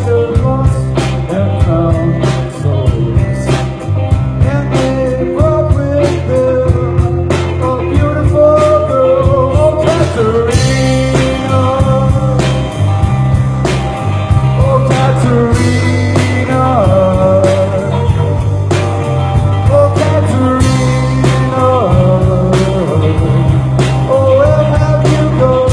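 Rock band playing live: drums keep a steady beat under bass, with a bending melodic lead line above.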